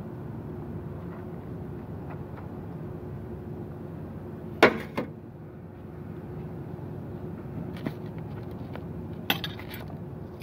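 Tableware handled at a meal: one sharp clatter about halfway through and a couple of softer knocks near the end, over a steady low background rumble.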